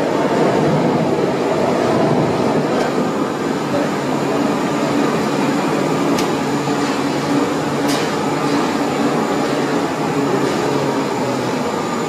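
Steady mechanical rumble of a running horizontal carbonization furnace, with faint sharp ticks about six and eight seconds in.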